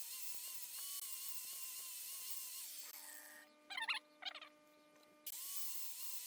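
Angle grinder running against a knife handle with a whine whose pitch wavers. About three seconds in it is switched off and winds down. Two short higher-pitched sounds come in the lull, and just past five seconds the grinder is started again and spins up.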